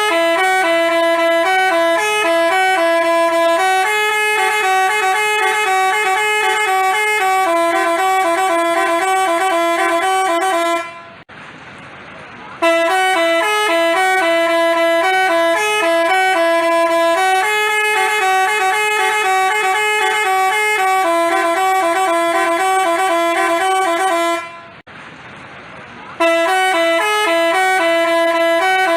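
Telolet Basuri multi-tone bus horn playing its melody: a stepping tune of clear horn notes, played through three times with short pauses about eleven and twenty-five seconds in.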